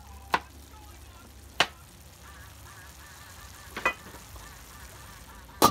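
Four sharp clicks or taps, a second or more apart, over a faint steady background, with a short, faint warbling whistle between the second and third.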